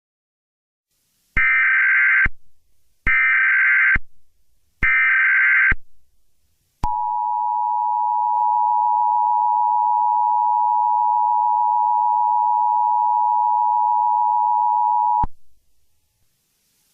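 Emergency Alert System tones: three short bursts of SAME header data, a warbling screech of two alternating tones, followed by the EAS two-tone attention signal (853 and 960 Hz played together), held steadily for about eight seconds. Together they announce the start of an emergency alert broadcast.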